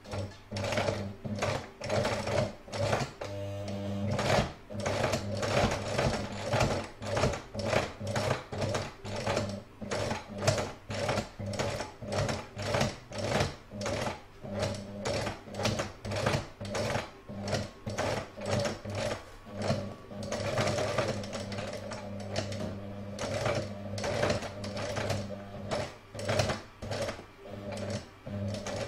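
Domestic electric sewing machine stitching slowly through layered fabric and felt: a steady motor hum with the needle clattering about twice a second.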